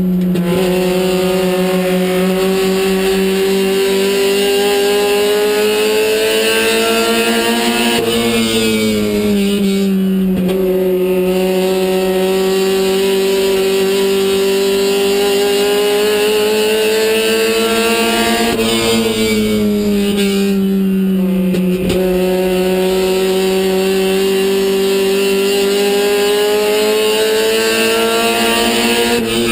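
Race car engine heard from inside the cockpit, running at high revs lap after lap: the pitch climbs slowly, then dips briefly about every ten seconds as the driver lifts off for the turns.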